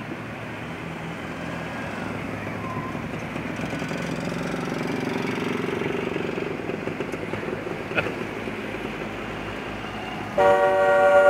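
Classic cars driving slowly past, their engine sound swelling as one goes by about halfway through. Near the end a car horn sounds loudly for about a second.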